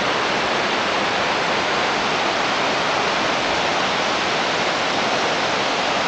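Steady, even rush of the Leuk waterfall in Saarburg, the stream pouring down over stepped falls and cascades past mill water wheels.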